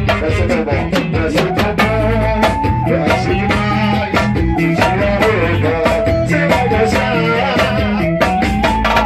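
A band playing an upbeat number: drum kit keeping a steady beat under bass and a melodic lead line.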